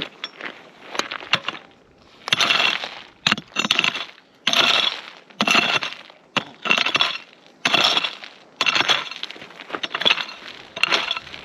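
Digging into stony, gravelly ground with a prospecting pick: a run of scraping, crunching strokes about once a second, with clinks of stones among them.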